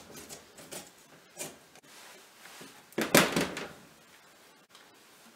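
Last few rasping strokes of carrot on a metal box grater, fading out, then a single louder knock and clatter about three seconds in as the grater is handled on the wooden chopping board.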